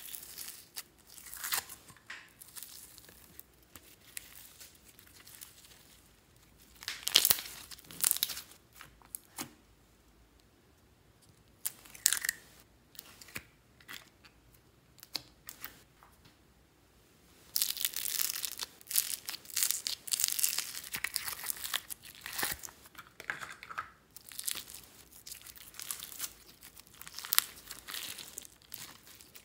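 Hands squeezing, pulling and stretching slime studded with foam beads, giving irregular crackles, pops and squelches. There are quiet stretches in the first half, and dense, steady crackling from a little past halfway.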